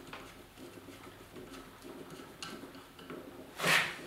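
Flat-bladed screwdriver turning a steel bolt back into the arm pivot of a Delta scroll saw: faint scrapes and ticks of metal on metal. Near the end comes a short, loud breath.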